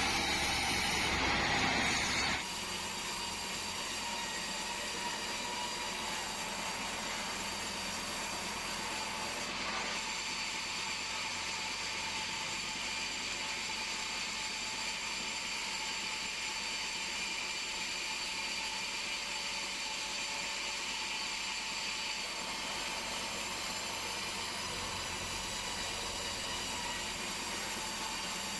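Band sawmill running with a steady hum and hiss carrying several held tones. It is louder for about the first two seconds, then drops and settles to an even level.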